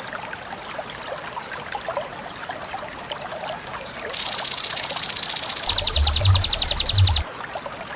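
Sogon and konin calls from a songbird-training masteran recording: about four seconds in, a loud high buzz holds for about a second and a half, then breaks into a rapid pulsed trill of about fourteen pulses a second that stops abruptly. A faint steady chorus of insects and frogs runs underneath.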